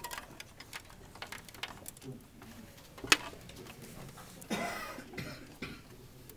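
Small clicks and rattles of hands handling cables and connectors inside an open desktop computer case. One sharp click about three seconds in is the loudest, and a brief rasp follows about a second and a half later.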